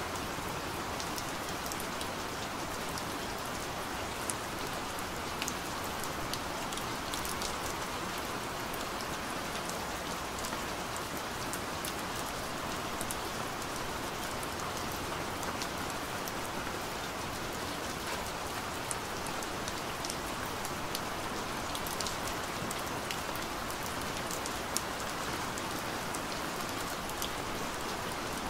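Steady rain falling, an even hiss with scattered sharp ticks of single drops hitting a surface.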